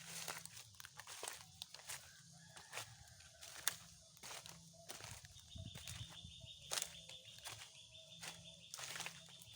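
Footsteps walking along a path at a steady pace, with a steady high-pitched tone coming in about halfway through.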